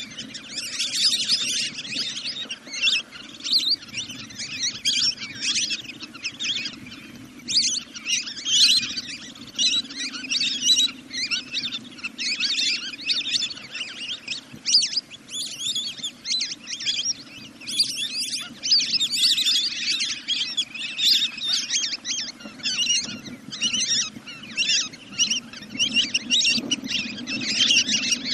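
A flock of ducks calling, a dense unbroken stream of rapid high-pitched chattering whistles and chirps. It is a recorded call used as a decoy to lure the birds down at night.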